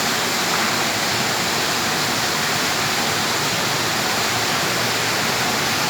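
Falling water rushing in a steady, unbroken hiss.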